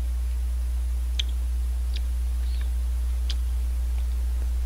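About four small clicks as shaved ice is eaten off a plastic spoon, over a steady low hum.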